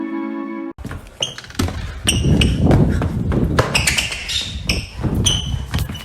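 Plucked background music cuts off near the start. It gives way to a busy run of knocks and thumps with short high squeaks between them, echoing as in a large hall.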